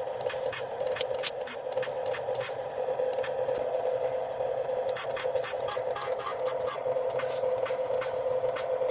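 Small electric motor and plastic gearbox of a WPL RC pickup truck running with a steady whine, with frequent clicks and scrapes throughout.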